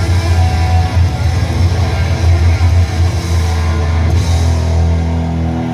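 Loud rock music with drums and guitar and heavy bass, played through car audio speakers. Near the end the music thins out into a steady low drone.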